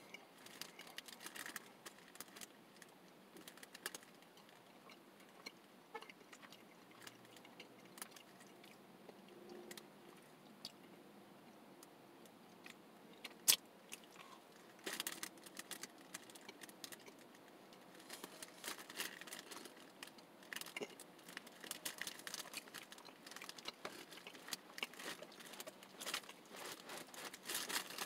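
Faint chewing and crunching of a frosted Pop-Tart, with many small crisp clicks and one sharper snap about halfway through as a bite is taken.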